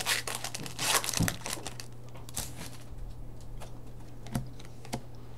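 Hockey trading cards being flipped through by hand: scattered soft clicks and rustles of card against card, busiest in the first second and a half, then a few isolated ticks, over a steady low hum.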